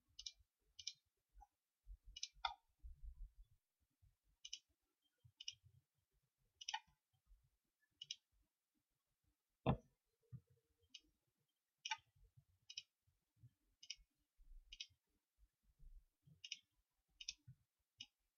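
Computer mouse button clicking faintly, short sharp clicks at irregular intervals of roughly a second, with one louder click about ten seconds in.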